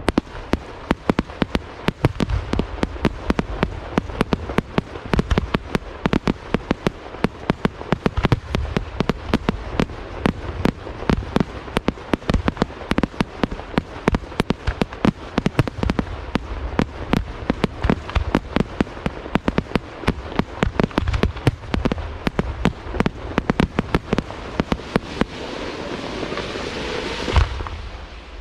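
Fireworks display: a rapid, unbroken barrage of bursting shells, many bangs a second, over a deep rumble. Near the end the bangs give way to a hissing, whistling swell, then one loud final bang.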